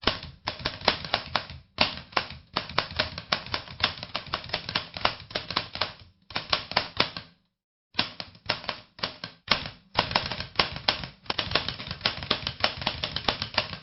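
Typewriter keys clacking in rapid runs of strokes, broken by short pauses, with a brief silent break just past the middle.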